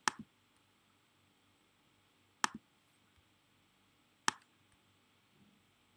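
Three short, sharp computer mouse clicks, one at the start, one about two and a half seconds in and one just over four seconds in, with near silence between them, as a drawing tool is picked and a line is placed on a trading chart.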